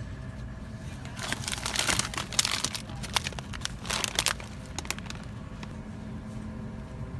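Plastic bag of frozen vegetables crinkling as it is handled and turned over. The crinkling starts about a second in, runs with sharp crackles for about three seconds, and ends with a few last clicks near five seconds, over a steady low hum.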